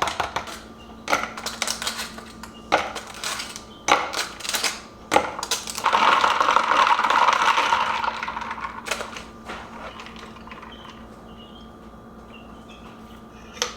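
Ice cubes dropped into a glass of iced latte, clinking sharply against the glass and each other several times over the first five seconds. This is followed by about two seconds of steady rattling noise, with quieter handling after that.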